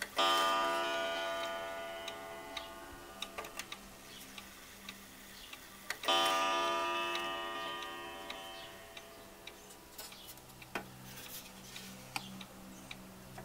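Beacon schoolhouse regulator wall clock striking a single ringing note just after the start and another about six seconds in, each fading slowly over several seconds, as its hands are moved on to one o'clock and then to the half hour. The clock's ticking and a few light clicks sound between the strokes.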